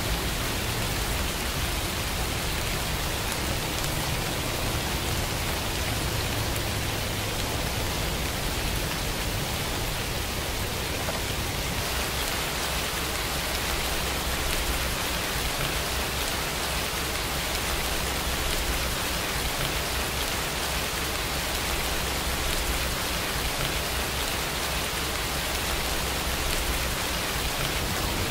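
Steady rain falling, an even hiss of drops with a low rumble underneath.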